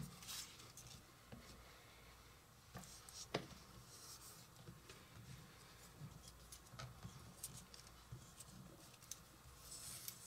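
Near silence with faint handling sounds: fingers pressing and sliding an oiled strip of parchment paper on a plastic cutting board, giving scattered light ticks and soft rustles.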